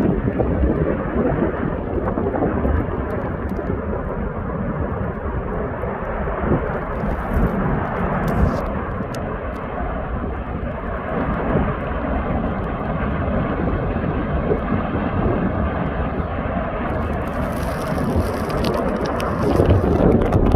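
Steady deep rumbling roar of the Fagradalsfjall volcanic eruption, with a few faint crackles about a third of the way in.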